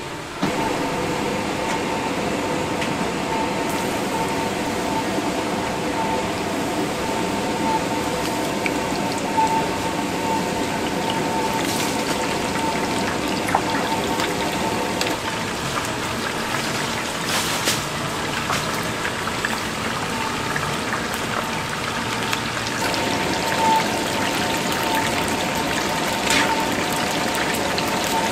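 Battered chicken deep-frying in a large pot of hot oil: a steady sizzling and bubbling, with a few sharp clicks of metal tongs and a faint steady tone underneath.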